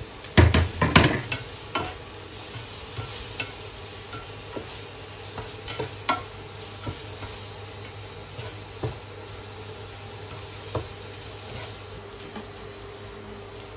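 Sliced bacon and dried chillies frying in a non-stick pan with a faint sizzle as they are stirred. A quick flurry of clicks of utensils against the pan comes in the first second, then scattered single taps, over a steady low hum.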